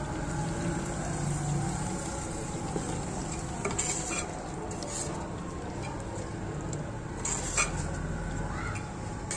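Metal ladle stirring thick chicken curry masala in a cooking pot over a steady sizzle of frying. A few sharp clinks come as the ladle knocks against the pot, the loudest about three-quarters of the way through.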